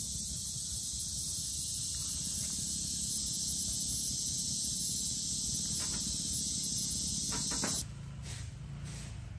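Dense, steady high-pitched buzz of an insect chorus, likely cicadas. About eight seconds in it cuts off suddenly and a motor scooter's engine hums faintly and low.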